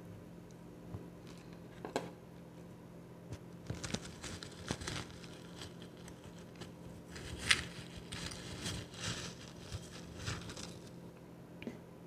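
Metal spoon digging and scraping through a plastic bowl of powdery ice: irregular soft crunching, crinkling scrapes in clusters, the loudest about seven and a half seconds in.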